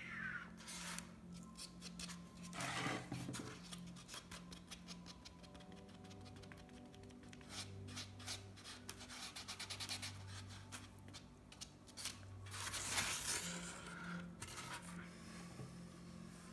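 Painting by hand on a board: quick scratching and rubbing strokes on the painted surface, with louder scraping bursts about three seconds in and again about thirteen seconds in, over a steady low hum.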